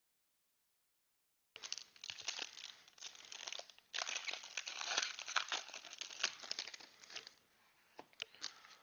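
Foil trading-card pack being torn open, the wrapper crinkling and tearing, starting about one and a half seconds in. It ends in a few light ticks.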